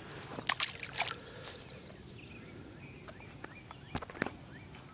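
Light splashing and sloshing of shallow water as a small largemouth bass is let go, with a few short, sharp knocks and clicks spread through it.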